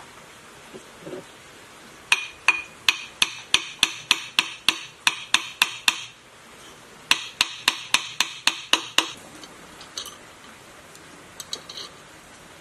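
Claw hammer striking the hub of a sewage pump's metal impeller: two quick runs of ringing metallic taps, about three a second, with a short pause between them and a few lighter taps near the end.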